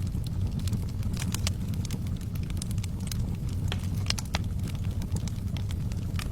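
Wood fire burning in a fireplace: a steady low rumble of the flames with many irregular sharp crackles and pops.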